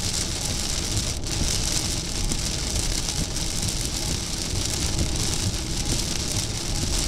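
Heavy rain hitting a moving car's windshield and body, with steady road and tyre noise, heard from inside the cabin.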